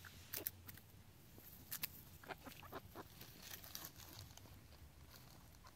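Faint, scattered taps and rustles of backyard hens pecking and scratching at dry straw and dirt.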